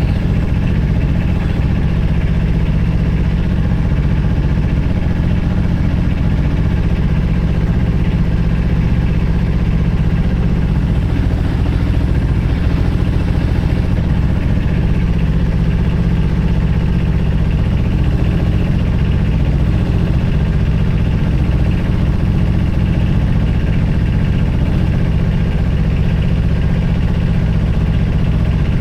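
Engine running steadily, a low-pitched, even sound that does not rise or fall.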